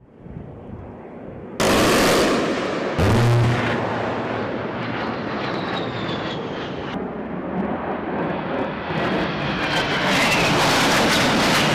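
A-10 Thunderbolt II jets flying past, the whine of their twin TF34 turbofans falling in pitch as each one passes, with abrupt jumps in loudness between passes. A short, loud low buzz comes about three seconds in.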